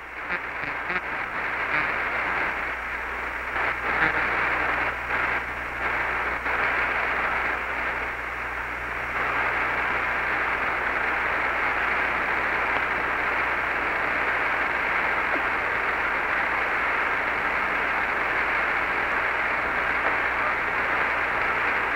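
Radio static hiss on the Apollo 11 air-to-ground voice channel, narrow like a radio link, with a low steady hum beneath: the open channel carrying no voice. Faint crackles flicker through the first several seconds, then the hiss runs even.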